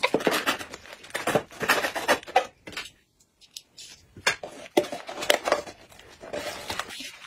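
Scraping, clicking and rustling as the rim of a sealed food canister is worked open with a small flat tool. The handling noise breaks off about three seconds in for a second of near quiet, then resumes with a few sharp knocks and rustles.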